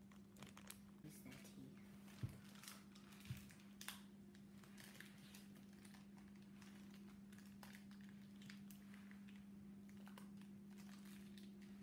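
Faint crinkling and scattered small clicks of a little plastic toy wrapper being picked and pulled at by hand, with a few sharper ticks in the first four seconds, over a steady low hum.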